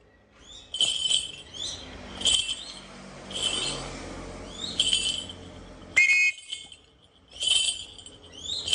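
A hawk calling over and over: about seven short, high, sharp calls, each with a quick slide in pitch, one every second or so.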